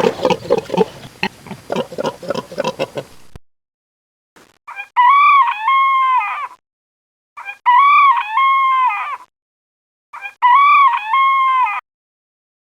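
A rough animal sound made of rapid pulses cuts off about three seconds in; after a short gap a rooster crows three times, the same crow repeated about every three seconds.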